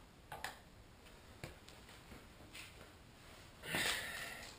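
A few light clicks and taps of hand tools working at a motorcycle fork tube to pry out the fork seal's retaining clip, then a louder rush of noise lasting under a second near the end.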